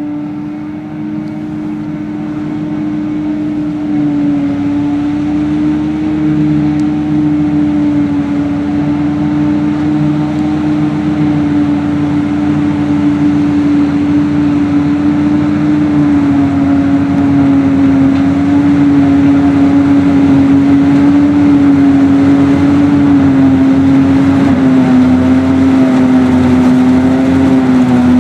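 Heavy diesel farm machinery running with a steady whine, growing louder as it comes closer.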